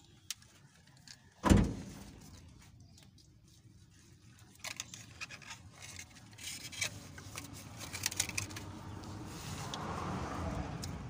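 Handling noise under a pickup's engine bay: one thump about one and a half seconds in, then light clicking and rattling as a hand moves the wiring harness and connectors around the coolant temperature sensor.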